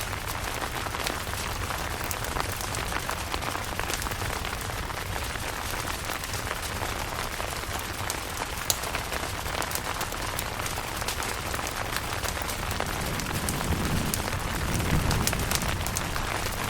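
Steady rain pattering on a camping tent, with many fine drop ticks. A low rumble of distant thunder swells near the end.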